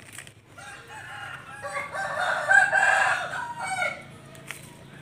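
A rooster crowing once: one long crow that starts softly, is loudest in the middle and ends about four seconds in.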